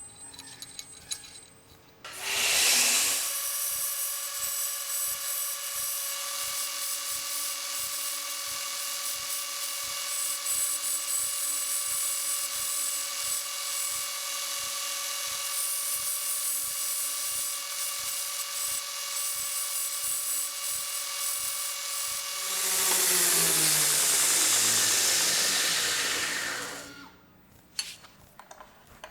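A machine tool's motor and spindle spinning up, running with a steady whine and a light tick about twice a second, then winding down with falling pitch and stopping.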